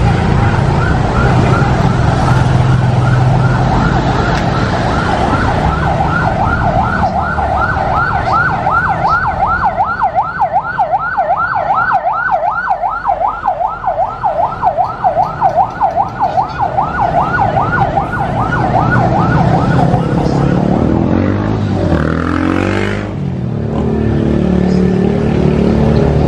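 Emergency-vehicle siren in a fast yelp, a rising and falling wail about four times a second, over steady street traffic. The siren stops about three-quarters of the way through.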